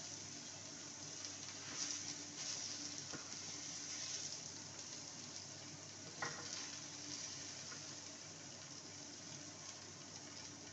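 Mushrooms frying in a pan with a faint, steady sizzle, stirred with a wooden spatula that taps and scrapes the pan now and then, once more sharply about six seconds in.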